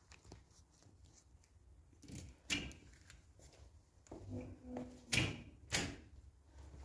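A few sharp knocks or taps in a quiet room: one about two and a half seconds in, then two more about half a second apart near the end.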